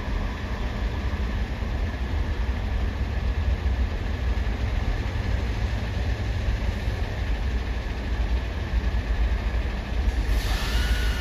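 Steady low rumble of heavy engines running at idle, with a short hiss about ten seconds in.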